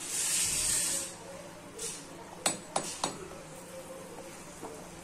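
A wooden spatula stirring boiling tomato soup in a stainless steel pot: about a second of hiss at the start, then three quick clinks against the pot about two and a half to three seconds in, with the soup boiling quietly underneath.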